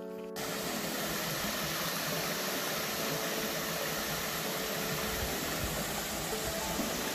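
A small rocky stream running down over boulders: a steady rush and splash of water.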